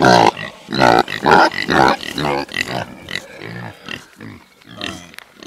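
Kune Kune pigs grunting in a run of short grunts, about two a second, growing quieter toward the end.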